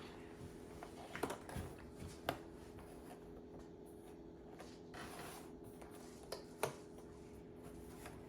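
Faint clicks and rustles of cardboard jigsaw puzzle pieces being handled and pressed into place, with a few sharper taps, over a steady low hum.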